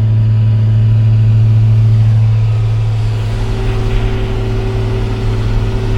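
John Deere tractor's diesel engine running with a steady, loud drone. It eases slightly about halfway through, where a fainter, higher steady hum comes in.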